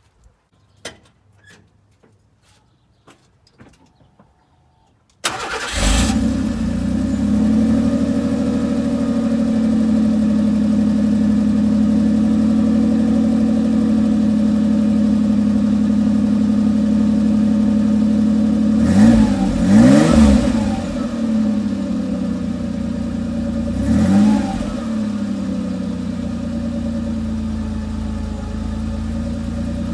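1990 Ford Ranger's 2.9 L V6 exhausting through a new Flowmaster Series 40 muffler and resonator tip: the engine catches suddenly about five seconds in and settles into a steady idle. It is revved twice in short blips later on, the idle easing a little lower near the end.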